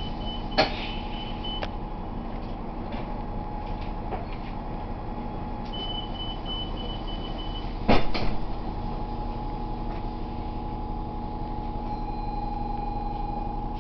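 New Flyer low-floor city bus standing with its engine idling in a steady hum, heard from inside. A rapid high beeping sounds near the start and again for about two seconds around six seconds in, and a loud clunk comes about eight seconds in.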